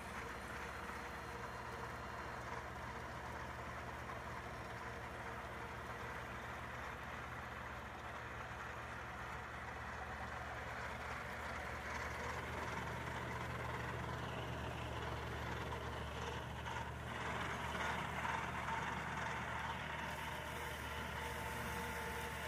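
Kubota tractor's diesel engine running steadily under load while its Kuhn FC283 front-mounted disc mower-conditioner cuts ryegrass, a continuous engine drone with the rush of the cutter, growing louder from about halfway as the machine comes closer.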